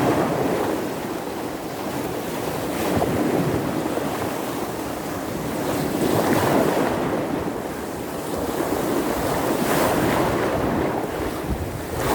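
Baltic Sea surf in a small storm: waves breaking on the shore one after another, the rush of water swelling and falling back about every three seconds.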